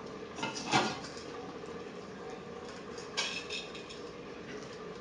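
Hands scooping oiled, steamed vermicelli from a ceramic dish into a metal couscoussier steamer basket: soft rustling near the start and a brighter rustle just after three seconds in.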